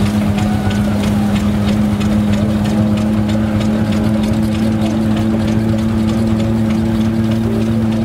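Vintage wooden threshing machine threshing sheaves, its drum giving a steady hum. It is belt-driven by a Crossley stationary engine, whose regular beat of about four knocks a second runs under the hum.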